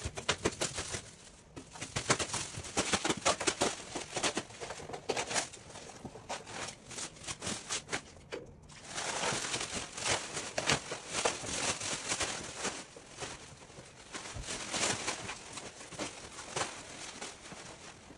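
Plastic wrapping crinkling and rustling as it is peeled and pulled off a glass aquarium, a dense run of crackles with a brief pause about eight and a half seconds in.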